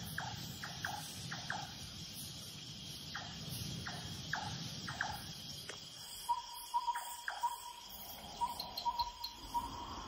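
Night-time insect chorus with a steady high-pitched drone. Short falling chirps repeat through the first half. About six seconds in, a pulsing trill takes over.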